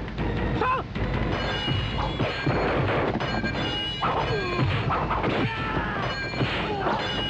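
Kung fu fight sound effects: a rapid series of punch and kick impacts over music.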